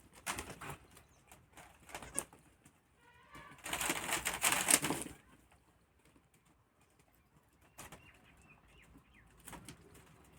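Birds flapping their wings, with a loud, noisy flurry about four seconds in, a few short rustles before it and faint calls later.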